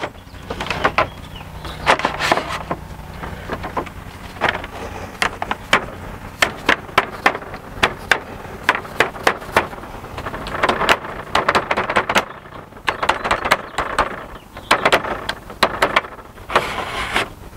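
Irregular runs of sharp clicks and light knocks from white Trex railing balusters being pushed and tapped along the rail by hand to even out their spacing.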